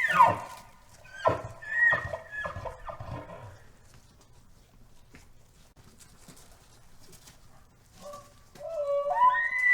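Animal calls: a long, high call drops away in a falling glide at the start. Several shorter falling calls follow, then a quiet stretch, and a new rising call begins near the end.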